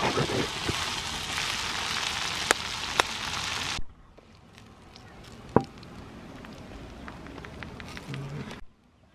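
Crickets sizzling and crackling in a steel wok over a wood fire while being stirred with a metal spatula, with a couple of sharp clicks. About four seconds in the sound drops off suddenly to a much quieter hiss.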